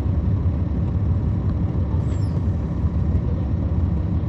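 The Cummins ISL9 diesel engine of a 2010 NABI 40-SFW transit bus, heard from the rear of the cabin, running with a steady deep rumble. A brief faint high chirp comes about two seconds in.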